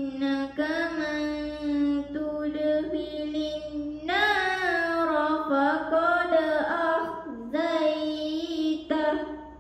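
A girl's voice reciting the Quran in melodic tilawah style, holding long ornamented notes with short breath breaks. The phrase grows louder about four seconds in and fades out near the end.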